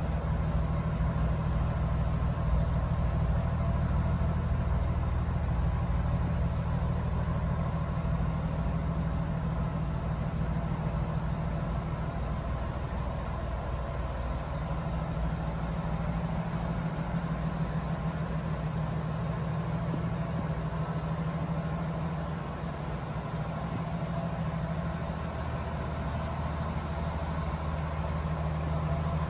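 1978 Jeep CJ-7's engine idling steadily.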